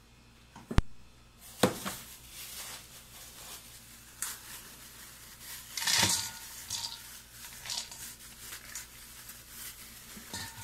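Chilled cooked rice being crumbled by hand and dropped into a stainless steel bowl: irregular soft rustling, with a louder spill of rice about six seconds in. A sharp knock about a second in, and another shortly after.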